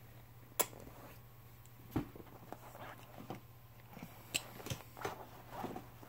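A few faint, scattered clicks and light knocks, the sharpest about half a second in and again after four seconds: small handling noises from a chair's frame and its fabric seat and strap.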